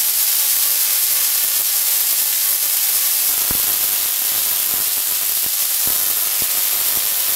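Homemade Tesla coil running, its spark discharges making a steady, loud hiss and sizzle, with a few sharper cracks about halfway through and later.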